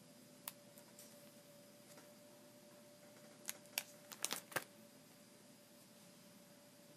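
Scattered light clicks and ticks of plastic binder pages and card sleeves being handled: one near the start, then a quick cluster about three and a half to four and a half seconds in. Under them runs a faint steady hum.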